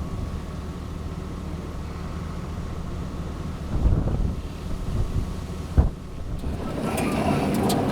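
Van running, heard from inside the cabin: a steady low rumble with a couple of short knocks, and a rushing hiss that grows near the end.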